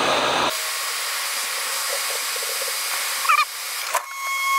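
Hot air rework gun blowing steadily, heating a capacitor's solder joint on the logic board that would not flow. The airflow hiss thins about half a second in, and a steady high tone starts near the end.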